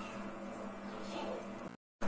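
Quiet room tone with a steady electrical hum, cutting to dead silence near the end.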